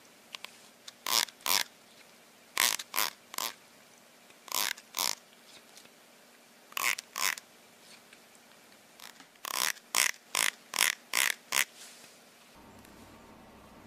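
A plastic comb's teeth strummed with a fingertip: short rasping zips in twos and threes, then a quick run of seven.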